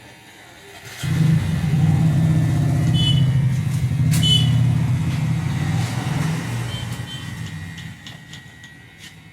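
A motor vehicle's engine, loud and low, rumbling up suddenly about a second in and then fading away over the next several seconds. A couple of short high beeps sound with it.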